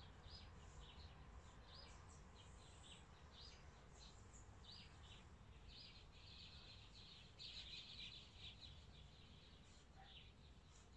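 Faint birds chirping in the background, short high chirps repeated every second or so, with a denser run of chirping past the middle.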